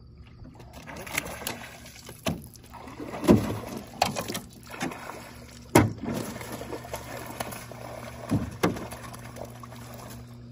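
A fish shot with a bowfishing arrow thrashing and splashing at the surface beside an aluminium jon boat, with several sharp splashes and knocks, the biggest about three and a half and six seconds in. A steady low hum runs underneath.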